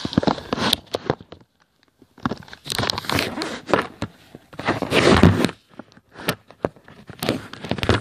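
Close handling noise: irregular rustling and scraping bursts with a few sharp knocks and clicks, loudest about five seconds in.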